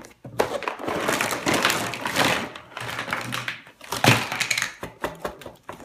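Crinkling and rustling of the Play-Doh set's plastic packaging as the toy pieces are taken out of the box, with a sharp knock about four seconds in and a few lighter clicks after it.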